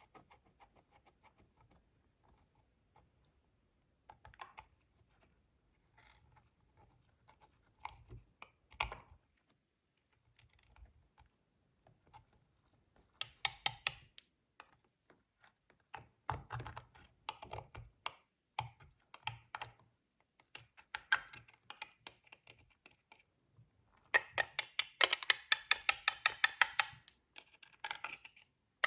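Slime being kneaded and squeezed by hand, giving bursts of rapid sticky clicks and small pops. The clicking is sparse at first and gets dense and louder in the second half, thickest near the end.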